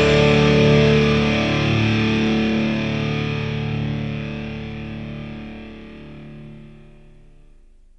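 Distorted electric guitar music: a held final chord ringing out and fading to silence.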